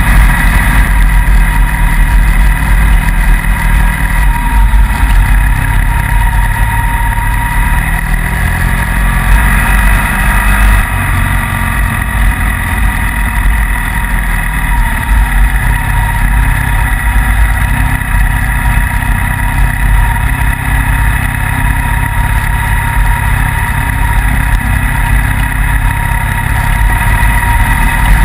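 Motorcycle engine running steadily at road speed, heard from the riding bike itself, under a continuous low rumble of wind on the microphone.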